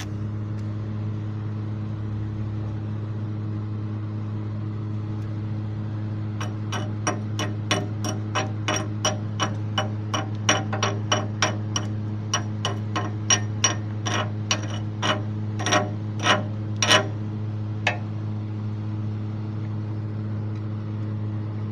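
Chipping hammer knocking slag off a freshly laid 7018 stick-weld bead on steel: a run of sharp metallic taps, two to three a second, that grow louder and stop a little before the end. A steady low electrical hum runs underneath.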